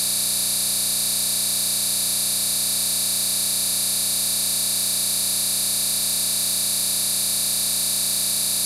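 A loud, steady electronic hiss like static, strongest in the treble, with no change in pitch or level.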